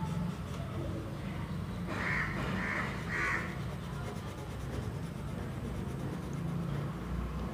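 A bird calling three times in quick succession, a couple of seconds in, over a steady low background hum.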